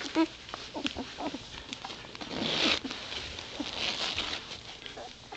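Newborn White Shepherd puppies: one short squeak right at the start, then soft rustling and shuffling as they squirm on a quilted pad, with a few faint small sounds.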